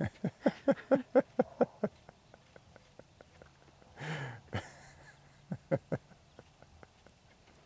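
Laughter: a quick run of about eight short, even "ha" bursts, then a breathy sigh about four seconds in and two more short laughs near the end.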